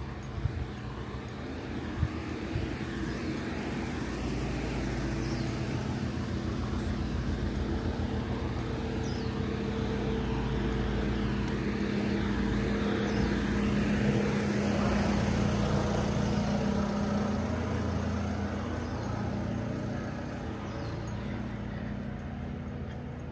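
Street traffic with a motor vehicle's engine running close by. It builds over about ten seconds, peaks and then fades as it passes. A few sharp knocks come in the first few seconds.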